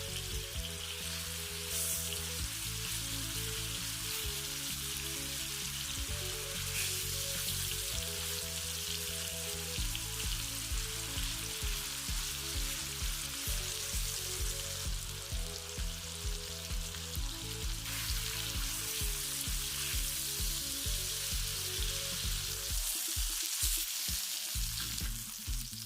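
Food sizzling as it fries in hot oil in a pan, under background music with a steady beat.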